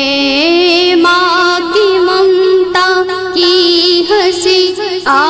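A woman's voice singing long held, wavering notes over a music backing.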